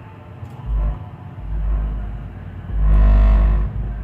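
Low hum from a home-built amplifier's speaker, swelling in three bursts. The last and loudest comes about three seconds in and is a buzz lasting about a second.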